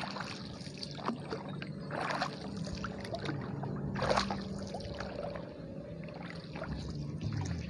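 A wooden paddle stroking through calm water beside a small wooden boat, with two louder splashing strokes about two seconds apart, small knocks and drips between them, and a low steady hum underneath.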